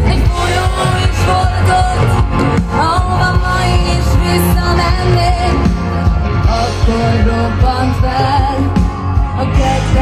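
Loud rock music with a lead singer's voice over a steady band beat.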